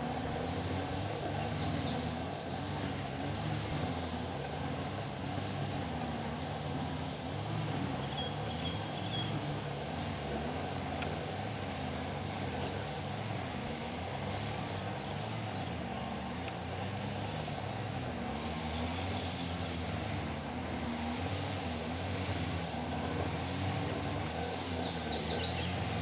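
Line trimmer's engine buzzing steadily in the background, its pitch wavering up and down as it runs.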